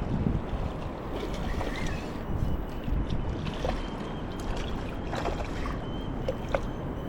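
River water rushing steadily, with wind buffeting the microphone and a few light clicks.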